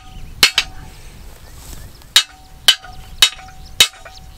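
Hammer blows on a steel rebar target frame, driving it into the ground. Two quick strikes, then after a pause four more about half a second apart, each with a short metallic ring.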